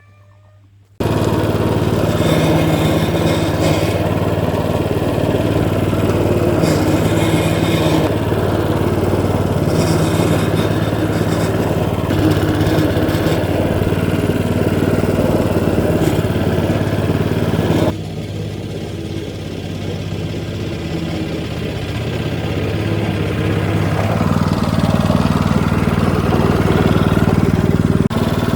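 Hecht 5676 lawn scarifier's engine running steadily while working the lawn. It cuts in abruptly about a second in, drops in level about two-thirds of the way through, then grows louder again near the end.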